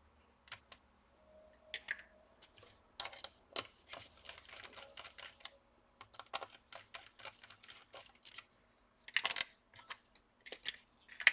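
Irregular light clicks, taps and scrapes of small tools and parts being handled inside an opened laptop while the Wi-Fi card and hard drive are taken out, with a louder cluster of clicks about nine seconds in.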